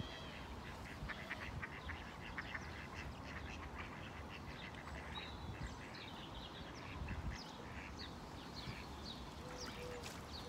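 Ducks quacking faintly, a quick run of quacks through the first half or so, thinning out after.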